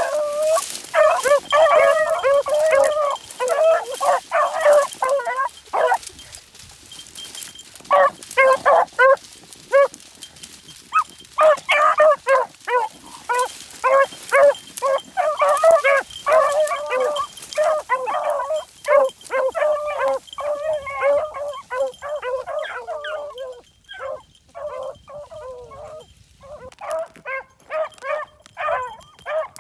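A pack of beagles baying and yelping together while running a rabbit's scent trail, several dogs giving voice at once and breaking off briefly a few times.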